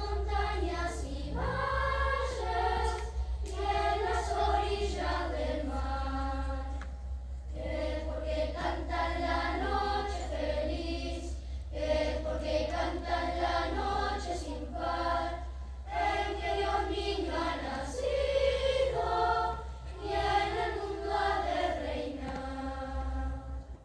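Children's choir singing unaccompanied in phrases of a few seconds with short breaths between them; the song ends near the end.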